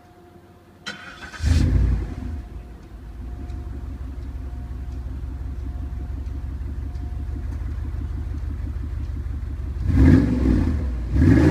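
Cadillac STS exhaust with two Flowmaster mufflers and no centre resonator: the engine is started about a second in, flares loudly as it catches, then settles into a steady idle. Near the end it is revved twice.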